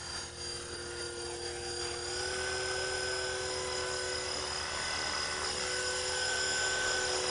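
Blade 330X electric RC helicopter in flight: a steady whine from its brushless motor and rotor. The pitch rises slightly and the sound gets a little louder about two seconds in.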